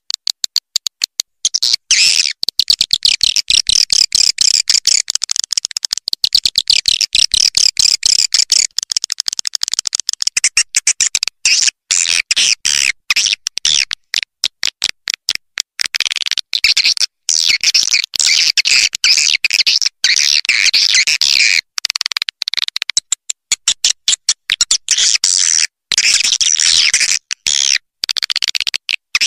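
Swiftlet roosting-call (suara inap walet) lure recording: a dense, rapid, high-pitched chittering twitter of edible-nest swiftlets, chopped by many brief gaps. It is the kind of call played in swiftlet houses to draw the birds in to roost.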